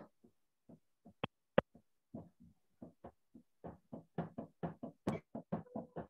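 Chalk writing on a chalkboard: a string of short taps and scratchy strokes. A few sharp taps come in the first two seconds, then a quicker run of strokes from about three and a half seconds in.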